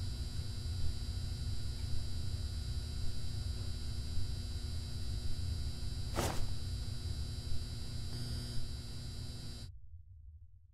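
Steady low rumble with a faint electrical hum, broken by a single sharp click about six seconds in; it fades to near silence shortly before the end.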